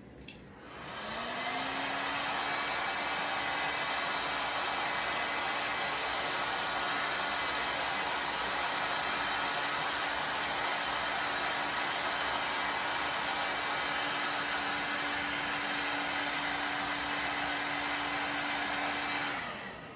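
Black & Decker heat gun switched on about a second in, its fan motor humming up to speed, then blowing steadily before being switched off near the end, the hum winding down. It is heating the adhesive along the iPad's edge so the screen can be pried loose.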